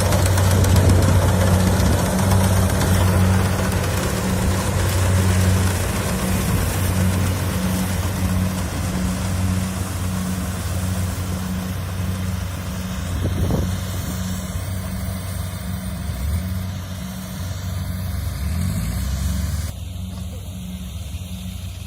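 Rice combine harvester's diesel engine running steadily with a constant low hum, gradually growing fainter; the higher-pitched machinery noise drops away suddenly near the end.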